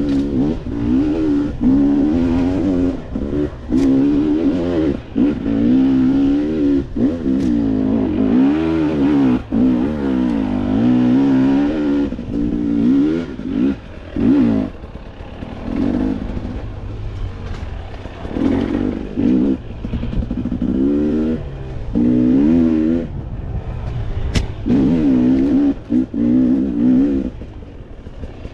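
2020 Husqvarna TX300i two-stroke dirt bike engine revving up and down as the throttle is worked on a trail, pitch rising and falling with short drops off the throttle between bursts. Near the end it falls back to a lower, steadier running sound.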